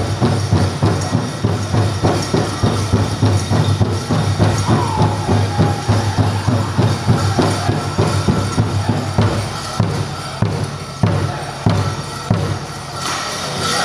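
Powwow drum group pounding a large hand drum in a fast, even beat, with voices singing high over it. Toward the end the steady beat gives way to a few scattered strikes.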